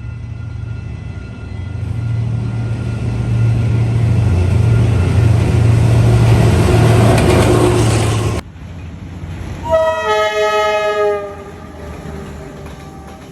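D19E diesel-electric locomotive approaching, its engine and running noise growing steadily louder for about eight seconds. After a sudden cut, the locomotive's horn sounds one blast of about a second and a half, a chord of several tones.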